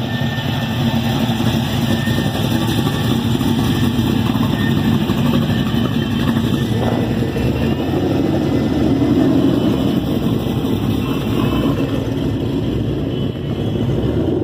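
Several cars' engines running as they drive slowly past one after another, a steady, loud engine and exhaust sound with no hard revving.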